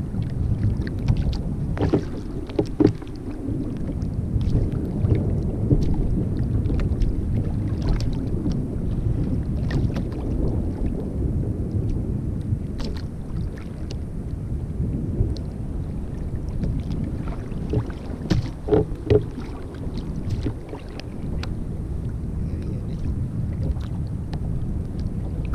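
Wind buffeting the microphone and water lapping against a sit-on-top kayak's hull, with scattered small knocks.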